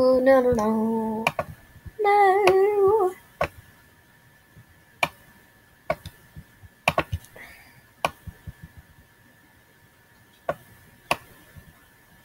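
A voice hums a held note, then a short wavering higher one, with no words. Then come scattered sharp single clicks about a second apart from working at the computer, over a faint steady high whine.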